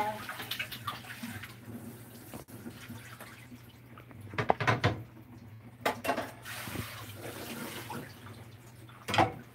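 Water running from a kitchen tap into a stainless steel sink while hands rinse in a plastic basin, with a few sharp knocks and splashes around the middle and near the end. A faint steady low hum sits underneath.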